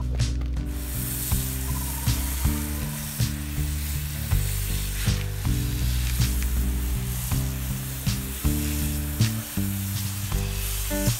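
Background music with a low bass line and changing chords, over a steady hiss with faint scattered clicks.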